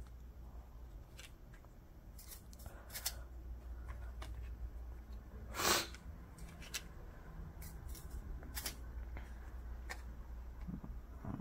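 Football trading cards being handled and flicked through one at a time: light papery slides and flicks, with one louder swish about halfway through.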